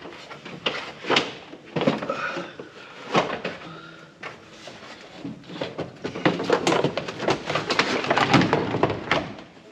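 Irregular knocks and clatter, thickest in the second half, with a few short ringing tones.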